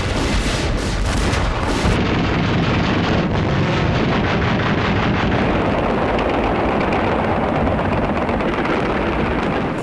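Anti-aircraft fire during a night air raid: a dense, continuous rumble of gunfire and shell bursts, with sharp cracks in the first two seconds.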